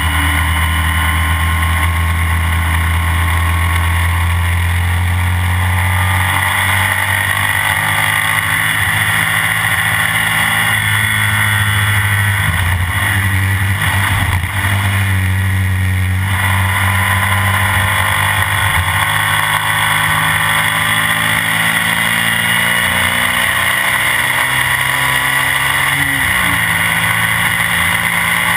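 Classic BMW racing sidecar outfit's engine running hard at speed, heard from on board. The revs rise and fall continuously through corners and gear changes.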